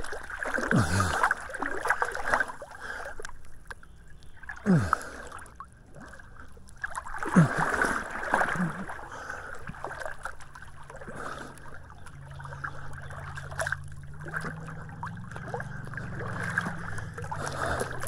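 Swimming-pool water sloshing and splashing as swimmers move through it, with several short swooshes. A low steady hum comes in about halfway through.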